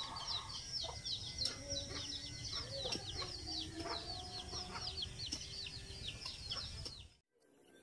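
Chickens clucking softly over a fast, steady run of high bird chirps. The sound cuts off abruptly near the end.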